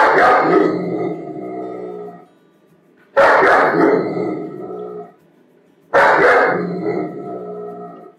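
German Shepherd dog barking in three loud bouts about three seconds apart. Each bout starts sharply and fades away over about two seconds.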